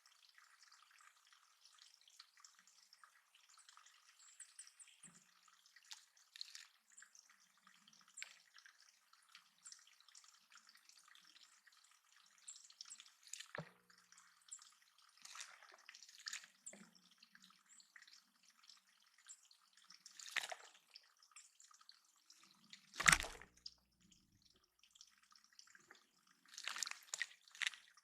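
Water in a bird pond dripping and splashing in irregular drops, faint, with one louder splash about two-thirds of the way through.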